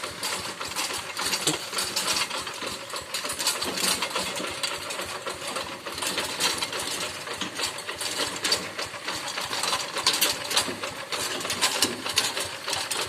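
Two-wheel walk-behind rice-field tractor's single-cylinder diesel engine running, with a rapid, even clatter.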